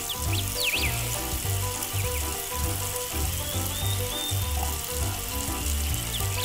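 A thin stream of water from a miniature tap running into a small sink, a steady light hiss, over background music with a steady beat.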